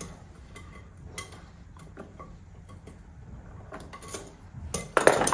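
Light metallic clicks and clinks of a sash chain being worked through a small steel clip by hand, with a louder clatter near the end.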